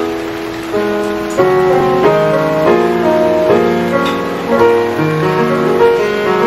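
Piano playing a slow introduction, held chords with a melody moving over them.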